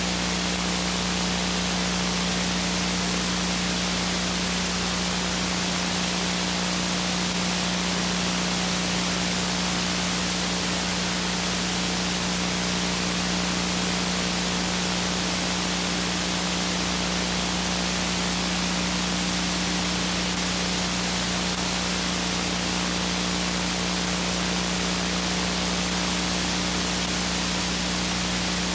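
Steady hiss with a constant low hum running under it, unchanging throughout: the background noise of a blank stretch of recording, with no speech or music.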